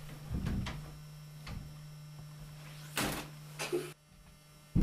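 Wooden door being handled as someone goes out: a few short knocks and thuds, with the loudest clatter about three seconds in, over a steady low hum that cuts off near the end.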